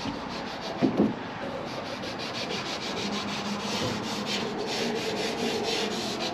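Abrasive Scotch-Brite pad scrubbed by hand over welded metal in quick, steady strokes, touch-up brushing to take off fingerprints and weld discoloration. A single knock about a second in.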